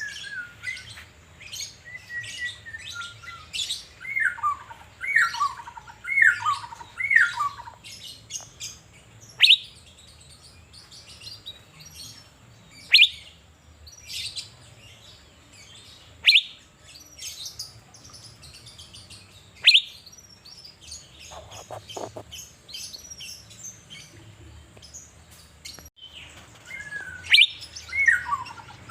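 Asian fairy-bluebird (cucak biru) calling in full voice. It opens with a run of short falling whistles, then gives four loud sharp calls about three seconds apart, with scattered chirps in between.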